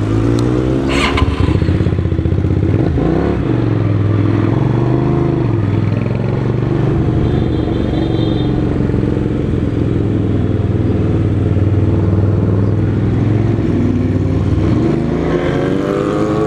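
Sport motorcycle engines idling with the throttle blipped now and then, the pitch rising and falling a few times and climbing again near the end. A short sharp click about a second in.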